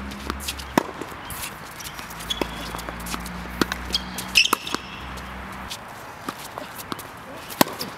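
Tennis balls popping off racquet strings and bouncing on a hard court during a doubles rally: a string of sharp, irregular knocks, the loudest about four and a half and seven and a half seconds in.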